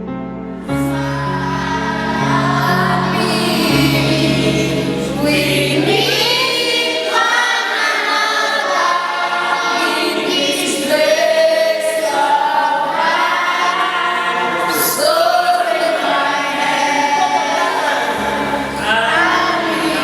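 A choir of voices singing a song together, with low held notes underneath that drop out about seven seconds in.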